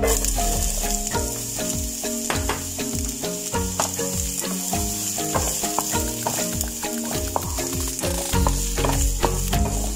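Diced onion sizzling as it hits hot olive oil in a frying pan, the hiss starting suddenly as it goes in, with a wooden spatula stirring and scraping across the pan. Background music plays underneath.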